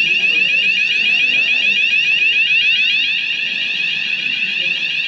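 Building fire alarm sounder going off continuously: a loud, high electronic tone with a fast warble, set off by a false alarm.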